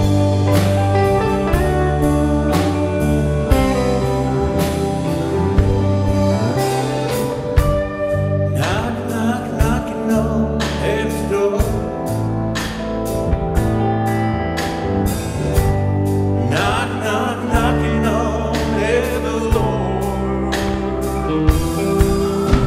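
Rock band playing a gospel song: drums keep a steady beat under bass and chords, and a singing voice comes in about eight seconds in.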